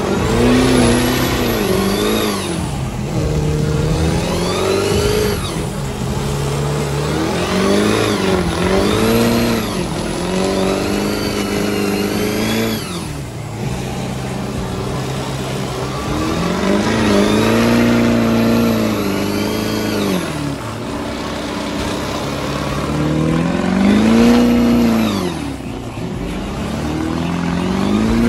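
Big mega-truck engines revved hard again and again, the pitch climbing and falling every few seconds, over another engine running steadily underneath.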